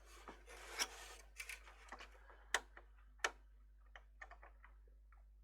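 Scattered clicks and light knocks of hands handling the opened electronic keyboard's plastic housing and internal parts, with a brief rustle about a second in and two sharper clicks in the middle.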